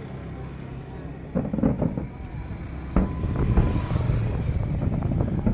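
Fireworks going off: a few sharp bangs about one and a half and three seconds in, then a building low rumble of bursts, with people's voices around.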